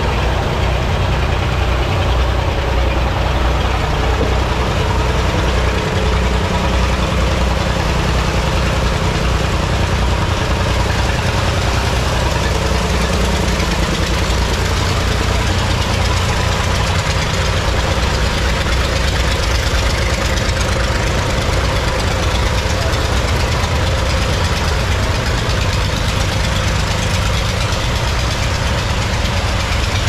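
Sawmill machinery's engine running steadily, a loud, even low drone.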